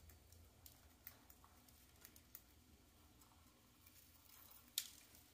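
Near silence with a few faint, scattered clicks, the most distinct near the end: budgerigars pecking at a millet spray.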